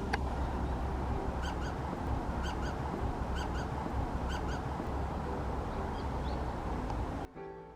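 A small bird calling in short, repeated paired notes, about a pair a second, over a steady low outdoor rumble.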